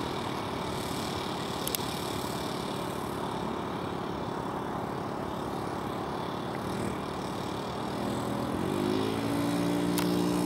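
Model aircraft engine of a scratch-built Ju 87 Stuka running steadily at low throttle, then opened up about eight seconds in, its pitch rising and holding higher and louder.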